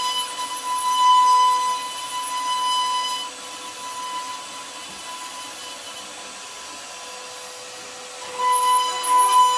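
CNC router spindle whining at a steady high pitch as its bit carves wood. The whine drops noticeably about a third of the way through and comes back loud near the end.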